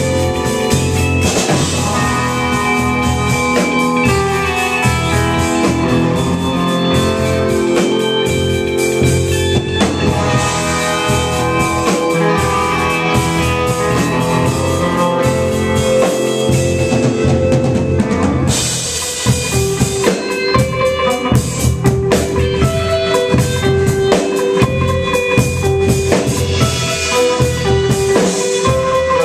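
Live band playing loud music on electric guitar and drum kit. About two-thirds of the way in, the dense wash of sound drops back to a choppier beat with one note repeated in short pulses.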